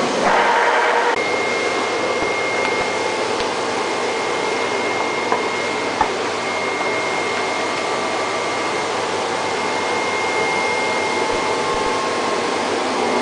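Flatbed cutting plotter's vacuum hold-down blower running steadily, a whoosh with a thin high whine. A louder mechanical whir fills the first second, and two small clicks come about five and six seconds in.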